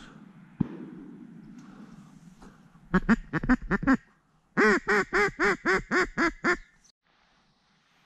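Duck call blown in two runs of quacks: a quick burst of about six about three seconds in, then a longer series of about nine loud, evenly spaced quacks.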